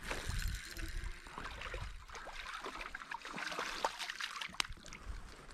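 A hooked crappie splashing and thrashing at the water surface as it is reeled in: a run of small splashes with sharp clicks.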